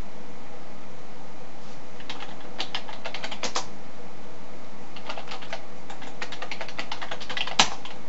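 Typing on a computer keyboard in two quick runs of key clicks, the second ending in one louder key strike, over a steady hiss.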